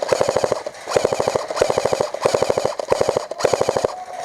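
Airsoft rifle firing full-auto in short bursts, about seven strings of rapid shots each lasting about half a second, with brief pauses between them.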